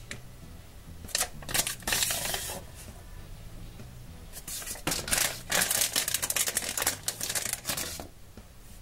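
Crinkling and rustling of a blind bag's paper flyer and packaging being handled, in two spells of crisp crackles: one starting about a second in, a longer one from about four and a half to eight seconds in.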